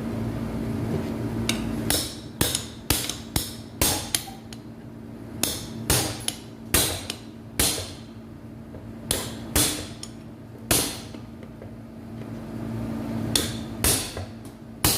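Hammer striking a chisel to straighten the bent-over locking tabs on a window AC fan motor's housing: about fifteen sharp strikes in uneven bursts, beginning about two seconds in.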